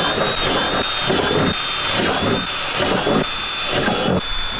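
Cordless drill running steadily with a high whine as it cuts a circular hole through a fiberglass bumper.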